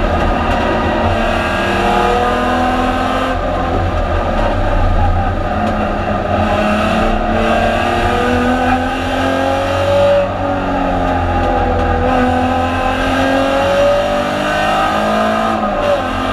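Alfa Romeo 156 GTA's 3.2-litre V6 racing engine running hard under load, heard from inside the stripped-out cabin: the engine note climbs through the revs and drops back at each gear change, several times over, over a steady low rumble of road and wind noise.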